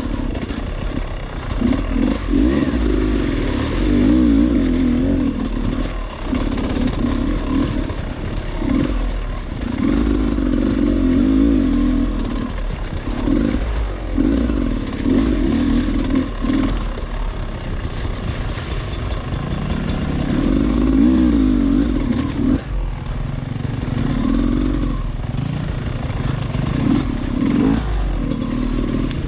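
Dirt bike engine revving up and dropping back again and again as the throttle is worked on and off over rough trail, with some clatter from the bike over the rough ground.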